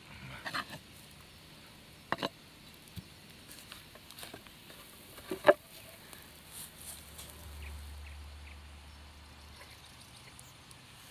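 A few sharp knocks of a metal frying pan against a wooden cutting board as the pan is flipped and lifted off the plov, the loudest about five and a half seconds in.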